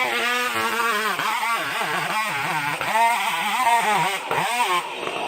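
Chainsaw engine running hard, its pitch dipping and rising over and over.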